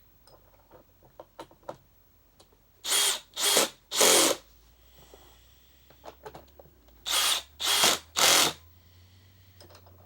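Cordless drill-driver run in short bursts with a high motor whine: three quick runs a little after three seconds in and three more after about seven seconds. Faint clicks of parts being handled come between the runs.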